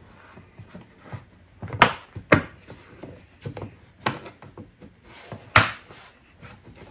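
A plastic trim piece being pressed back onto a car by hand: four sharp snaps as it clicks into place, spaced over several seconds, with lighter taps and handling between them.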